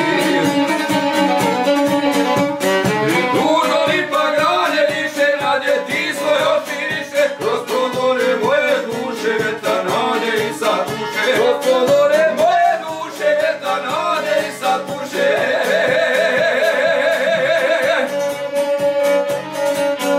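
Traditional Posavina folk music: a violin playing the melody over a šargija (long-necked lute) strummed in a rapid, even rhythm, with two men singing.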